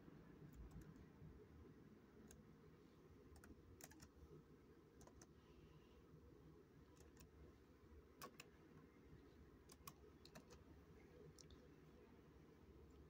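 Near silence over a low room hum, with faint, sparse clicks of a computer keyboard at irregular intervals, roughly one or two a second.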